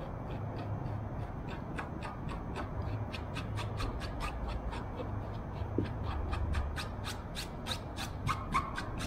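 Glue applicator dabbing on taut aircraft covering fabric: a run of light taps, sparse at first, then about four a second and louder from about three seconds in, over a low steady hum.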